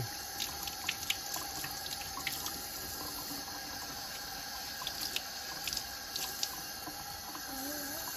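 Kitchen tap running in a steady stream into a sink as duck eggs are rubbed clean by hand under it, with scattered small ticks and splashes.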